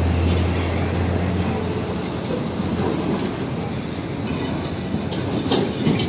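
Heavy diesel fuel tanker trucks driving past on a road, a steady rumble with road traffic noise, the low engine drone strongest in the first second or so. A few sharp clicks come near the end.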